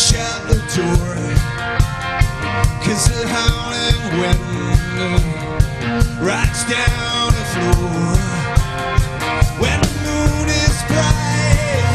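Rock band playing live: electric guitar, electric bass and a drum kit keeping a steady beat of about two to three hits a second, with a voice singing over the mix.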